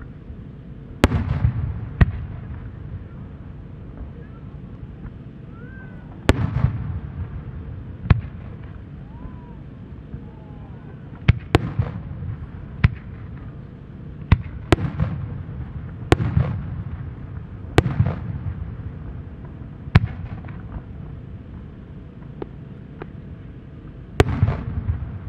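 Japanese aerial firework shells bursting overhead: about fifteen sharp bangs at irregular intervals, some in quick pairs, each followed by a low rolling rumble of echo.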